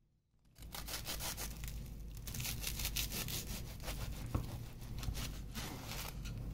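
A bread knife sawing through a crisp, butter-toasted sandwich, a quick run of crunching, rasping strokes of the blade on the toasted crust. It starts about half a second in.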